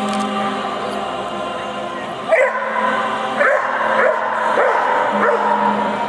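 A dog barking in short, sharp yips, repeated about once or twice a second from about two seconds in.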